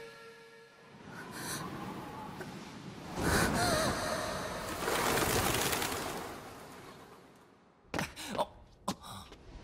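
A rushing, breathy whoosh that swells and fades over several seconds, with a gasp in it about three seconds in, followed near the end by a few sharp knocks.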